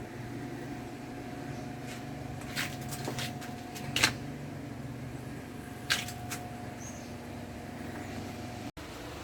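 A workshop machine's electric motor running with a steady hum, broken by a few sharp metallic clicks, the loudest about four seconds in. The sound drops out for an instant near the end.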